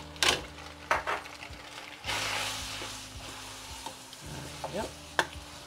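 Spaghetti in tomato sauce being tossed and stirred with a wooden spoon in a steel pot on the heat, sizzling. Two sharp knocks near the start, and a burst of sizzling about two seconds in that fades away over the next couple of seconds.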